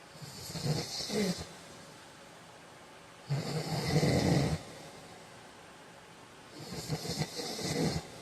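A man snoring in his sleep: three snores about three seconds apart, the middle one the loudest.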